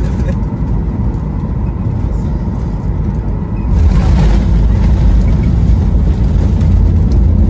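Cabin noise of a Boeing 737 MAX 8 landing: a steady low rumble of engines and airflow that steps up about four seconds in, with a brief hiss, as the plane touches down and slows on the wet runway.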